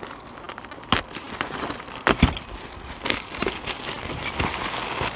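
Clear plastic wrapping being pulled and torn off a packaged inflatable sleeping mat, crinkling, with sharp snaps about one and two seconds in and denser crackling near the end.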